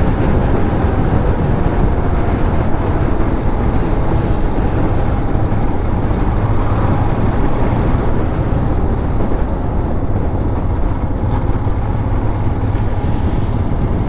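Motorcycle at steady cruising speed: a constant engine hum under rushing wind noise, with no change in pace.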